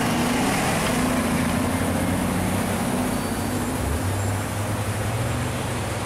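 A motor vehicle's engine running close by, a low steady hum that shifts in pitch about four seconds in.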